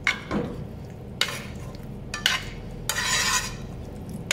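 Metal utensil stirring penne through a creamy pesto sauce in a non-stick frying pan, with several short scrapes against the pan and one longer scrape about three seconds in.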